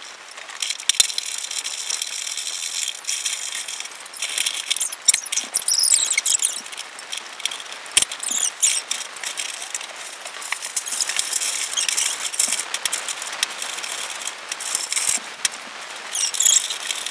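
Stiff brown kraft paper crinkling, crackling and tearing as a hole is cut and ripped out of a sheet by hand, with sharp clicks and rustles throughout.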